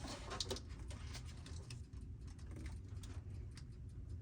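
Faint, irregular small clicks and rustles of hands and multimeter probes working among a golf cart's wiring harness and plastic connectors, over a low steady hum.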